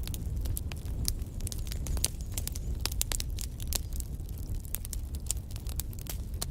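Wood fire burning in a fireplace: many sharp, irregular crackles and pops over a steady low rumble of flames.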